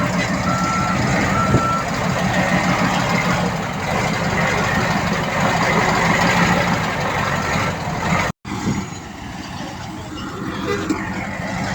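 Heavy diesel earthmoving machinery running, with a reversing alarm giving short steady beeps: two near the start and one more later. The sound drops out completely for an instant about eight seconds in.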